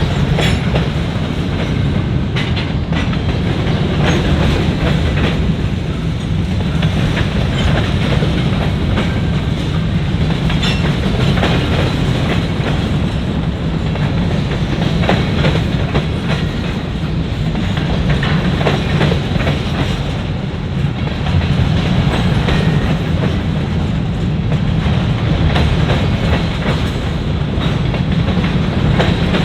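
Grain train's freight cars rolling past: a steady loud rumble with a rapid clicking of wheels over the rail joints.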